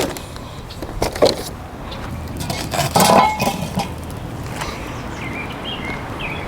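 Cookware and utensils knocking and clinking a few times, the loudest clatter about three seconds in, over a steady outdoor hiss.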